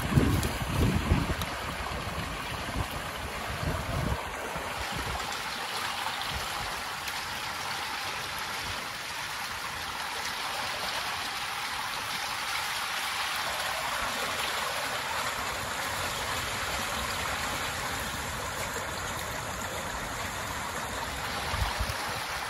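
Stream water running steadily, with a few low thumps in the first few seconds.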